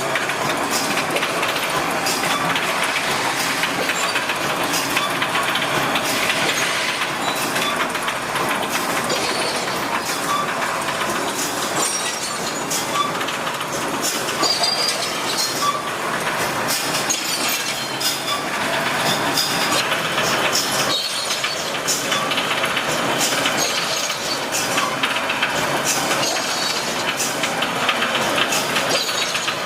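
Automatic brick force wire mesh welding machine running, a continuous mechanical clatter with many sharp clicks throughout.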